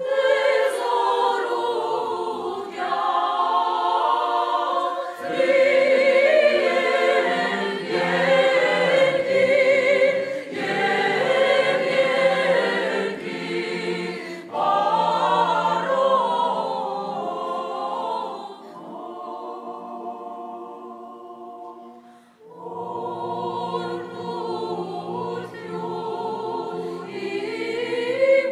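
Mixed choir of women's and men's voices singing a cappella in sustained phrases. About two-thirds through the singing grows softer, breaks off for a moment, then comes back in full.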